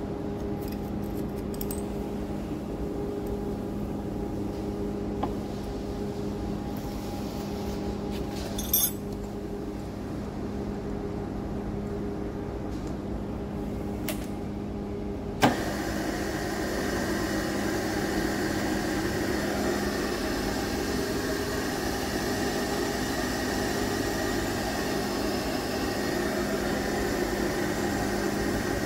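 Milling machine humming steadily. About halfway through there is a sharp click and the spindle starts turning with a boring head fitted, running louder and steadily from then on.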